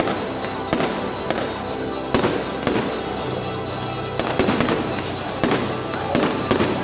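Fireworks going off: repeated sharp bangs, roughly one or two a second, over a continuous crackle, with music playing alongside.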